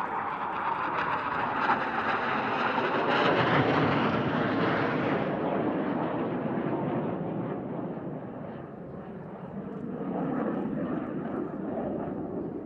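Jet noise from BAE Hawk jet trainers' Adour turbofan engines as the jets fly past. It swells to its loudest about four seconds in, fades, then rises again near the end as the next pass comes through.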